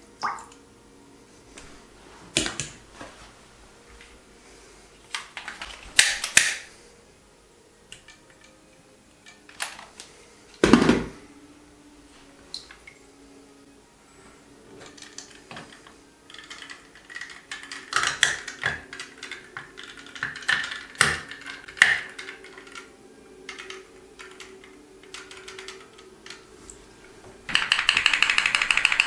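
Scattered knocks and clicks of a small plastic toy boat and syringe being handled against a bathtub. Near the end the boat's candle-heated pop pop steam engine starts up with a fast, steady run of pops.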